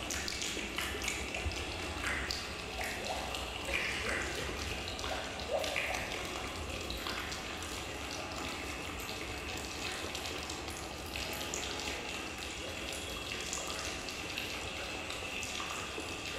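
Steady sound of running water, with scattered small splashes in the first few seconds, heard as part of a stage dance's soundtrack.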